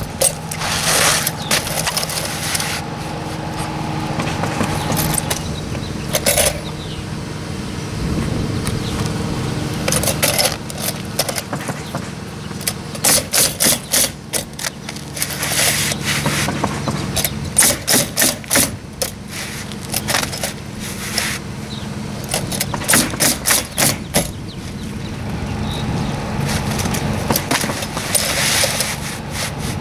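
Pneumatic roofing nailer firing into asphalt shingles in quick runs of several shots a second, with short pauses between runs, over a steady machine hum.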